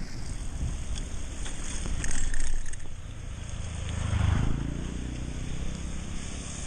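Bicycle ride noise: a low rumble of wind on the microphone with tyre and road noise, louder briefly about two seconds in and again around four seconds in.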